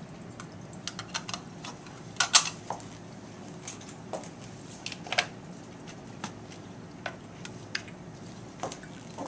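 Scattered small clicks and clinks of hands working at a lab bench with a pipette and plastic and glass labware, the loudest clatter about two seconds in and again around five seconds, over a steady low hum.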